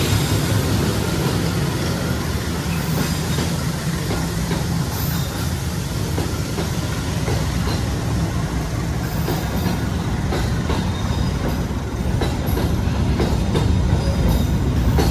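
Train passing at speed, a steady rumble of the carriages with wheels clacking over rail joints; the clacks grow sharper and louder in the last few seconds.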